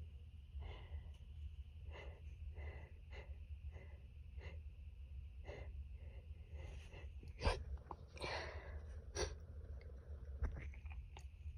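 A person's stifled allergy sneezes. First comes a run of quick, short breaths as the sneeze builds. Then two sharp, suppressed sneeze bursts about two seconds apart in the second half, with a noisy breath between them and smaller snorts or breaths near the end.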